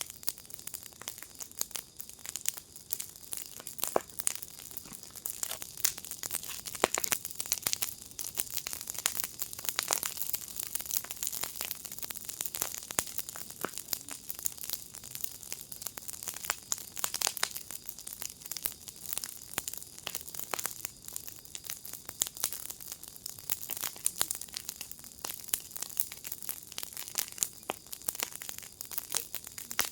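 Wood fire in a fire pit crackling, with dense, irregular sharp pops and snaps over a soft hiss.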